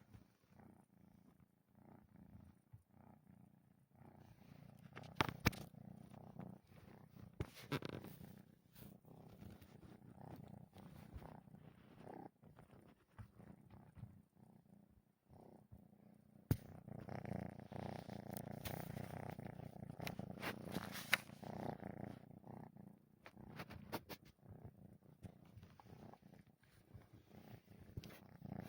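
Sleeping kitten snoring softly, a faint continuous rasping that grows louder for several seconds past the middle, with a few short clicks.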